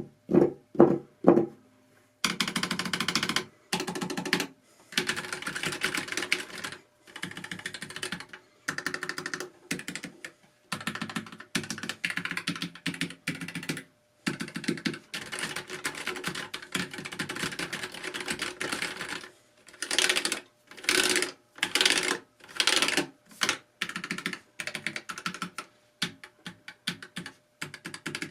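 Fast typing on a Keychron K5 Pro low-profile mechanical keyboard with Keychron brown switches: runs of rapid key clacks one to three seconds long, broken by short pauses. It opens with a few louder single knocks in the first second or so.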